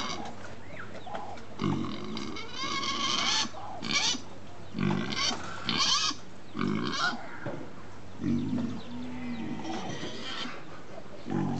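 Hungry pigs grunting, short low grunts every second or two, mixed with several high-pitched squeals.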